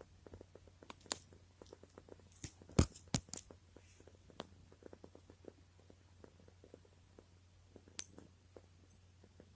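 Domestic cat purring faintly close to the microphone, a low continuous rumble, with a few sharp clicks or taps, the loudest about three seconds in and another near the eighth second.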